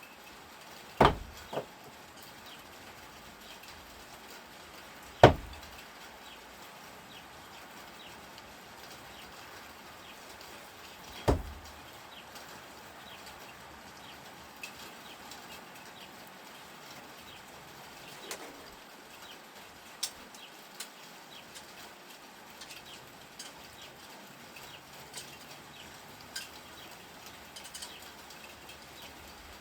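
Thrown no-spin screwdrivers striking a target three times, several seconds apart, each a sharp loud impact; the first is followed by a smaller knock. A few faint clicks follow.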